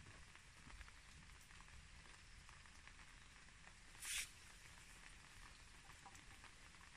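Faint gritty ticks of a bamboo chopstick being worked into coarse, gravelly bonsai soil, with one short brushing rustle about four seconds in.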